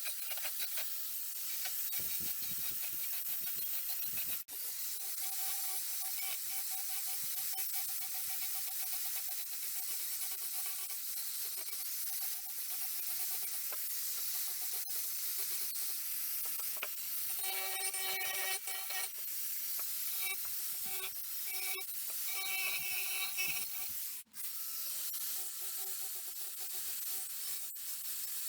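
Steady high hiss of abrasive work on an old axe, with two sudden brief breaks, about four seconds in and near the end.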